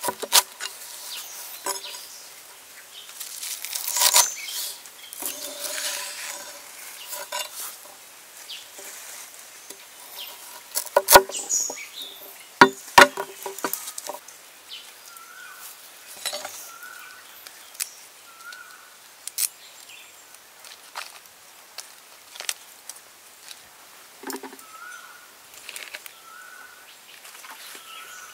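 Cleaver chopping and knocking on a wooden cutting board in scattered strokes, with a few hard blows around the middle. Through the second half a bird repeats a short chirp every second or two.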